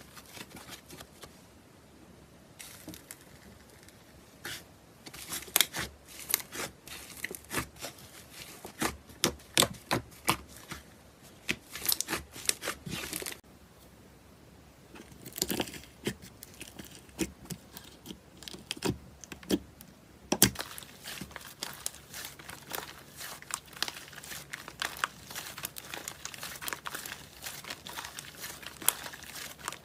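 Crunchy slime being stretched, squeezed and poked by hand, giving dense runs of crackling and popping clicks, with two short quieter pauses between clips.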